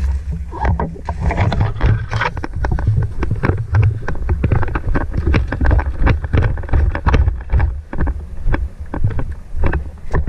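Heavy low rumble of wind and handling noise on a body-worn microphone, with dense, irregular clicks and crackles throughout.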